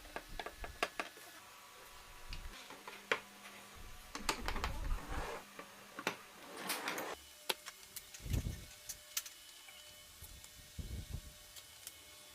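Irregular clicks and knocks with short scraping stretches, like small objects being handled and set down, and a couple of dull thuds. No sander or other motor is running.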